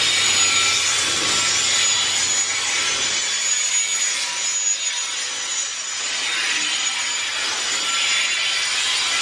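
Steel wheels of loaded container flatcars rolling past on a curve, rubbing and squealing against the rails in a steady rushing hiss with faint high tones.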